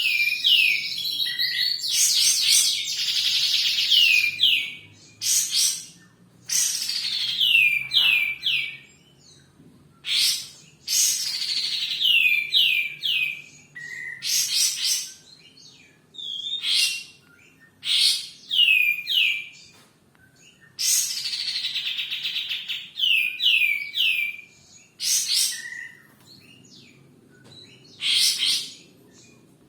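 A kapas tembak songbird singing loud, varied phrases of quick falling whistled notes, one phrase every second or two with short pauses, some phrases longer and denser. A faint steady low hum lies underneath.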